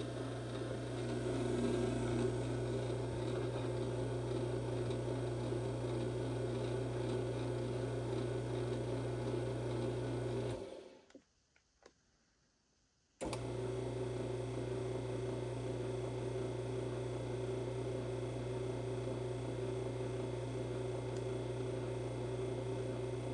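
Restored LiftMaster ATSW MC light-duty commercial chain-drive door operator running with a steady, super quiet motor hum. About ten and a half seconds in it winds down and stops, with a couple of faint clicks. Some two and a half seconds later it starts again abruptly and runs steadily on.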